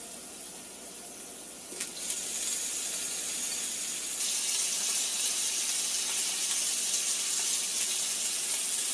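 Oil-marinated bell pepper pieces sizzling on a preheated electric indoor grill plate set to 350°F, a steady high hiss that gets louder about two seconds in and again about four seconds in as more pieces go on.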